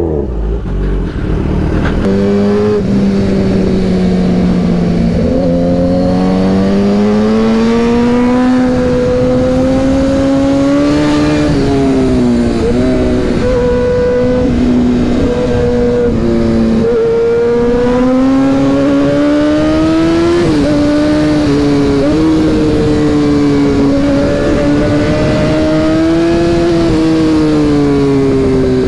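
Kawasaki ZX-10R's inline-four engine heard from on the bike while riding, its pitch climbing and falling with the throttle and dropping sharply at each gear change, several times.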